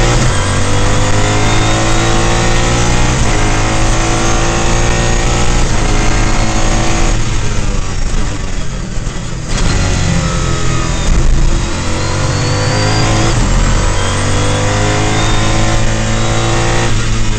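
Mosler MT900 race car's V8 heard from inside the cockpit, accelerating hard and changing up through the gears, its pitch dropping at each shift about three and thirteen seconds in. Around the middle the driver lifts off and the note falls for a couple of seconds before the engine pulls hard again.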